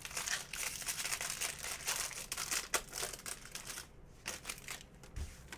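Trading-card pack wrapper crinkling as it is torn open and handled. The rustle is dense for about the first four seconds, then thins to a few light rustles and clicks.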